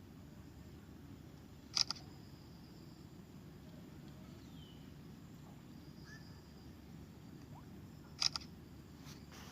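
Smartphone camera shutter sound, two short double clicks about six and a half seconds apart, as the camera-based fingerprint scanner app captures the finger. Low steady background noise throughout.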